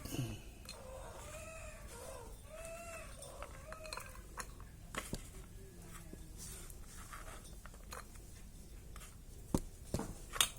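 A domestic cat meowing: about four short, arched meows in the first four seconds, followed by a few sharp clicks and knocks later on.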